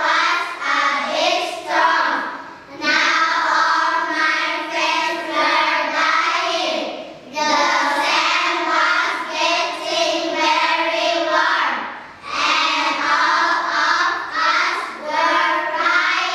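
A children's choir singing in unison, in phrases of a few seconds each with short breaks for breath between them.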